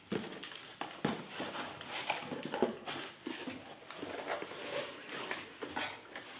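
Cardboard boxes being opened and handled by hand: flaps rustling and scraping, with irregular soft knocks.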